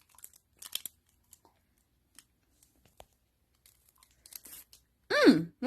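Scattered quiet crinkling and crackling of a wrapper or packaging being handled, with one sharp click about three seconds in. A short, high voice sound with a bending pitch comes near the end.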